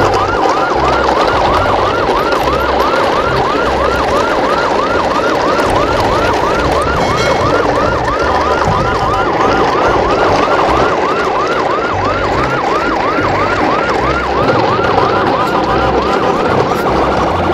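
Electronic siren in a fast yelp, its pitch sweeping up and down about three times a second without a break, over a dense, steady noisy background.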